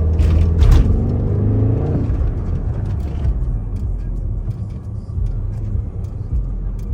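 BMW X6M's twin-turbo V8 engine and road noise heard from inside the cabin while driving, a steady low rumble. The engine note shifts in pitch during the first couple of seconds, then settles.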